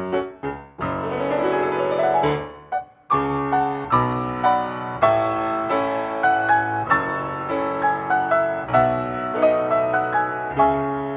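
Yamaha grand piano playing a classical piece: short detached notes, then a fast rising run of notes, a brief break about three seconds in, and then struck chords over sustained bass notes.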